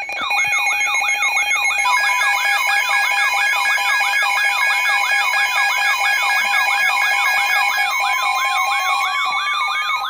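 Several weather-alert radios sounding their alarms at once, announcing a new warning: a rising whoop repeats about three times a second over steady and pulsing beeping tones at several pitches.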